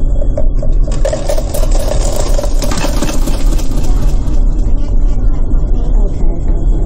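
Self-serve touchscreen soda fountain pouring a drink into a cup: a hissing pour starts about a second in and stops about three seconds later, over a steady low rumble.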